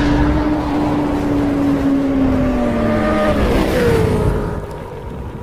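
Motorcycle engine sound effect: a loud pitched engine note that sinks slowly. About three and a half seconds in it jumps higher and slides down again, then fades out.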